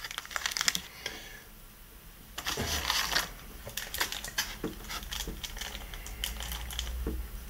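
Plastic packaging crinkling with a run of small clicks and taps as a hand handles bagged accessories and rummages in a polystyrene box. The sounds are densest about two and a half to three seconds in.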